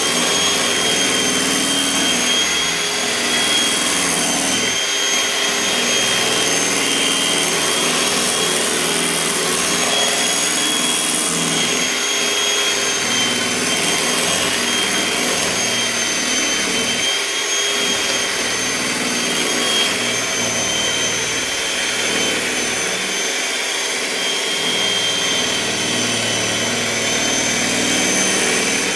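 Electric mixer motor running steadily at speed, mixing cake batter, with a high whine that wavers slightly.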